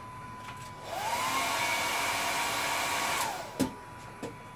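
A small electric blower motor starts about a second in. Its whine rises, then runs steady with a rush of air for about two seconds and falls away as it switches off. It is followed by a sharp click and a lighter one.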